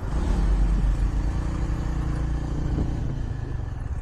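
Yezdi Adventure single-cylinder motorcycle engine running while riding, a steady low rumble that is heavier in the first second.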